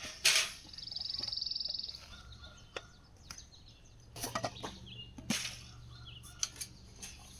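Birds chirping outdoors, with a high, fast trill lasting about a second, among scattered small clicks and knocks.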